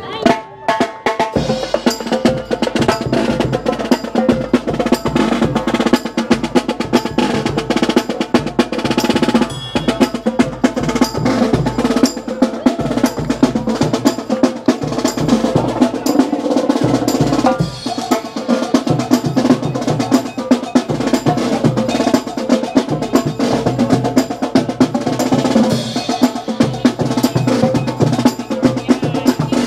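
Marching band drum line playing a marching cadence: rapid snare drum strokes and rolls over tenor drums, bass drum and cymbals, going on steadily.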